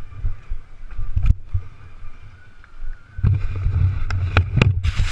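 Steady low rumble and wind buffeting on a helmet-mounted camera's microphone, with a run of knocks and bumps starting about three seconds in as the rider moves about.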